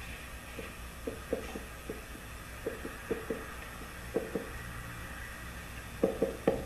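Marker pen on a whiteboard as words are written: a run of short, uneven tapping and squeaking strokes, loudest and closest together near the end. A steady low room hum runs underneath.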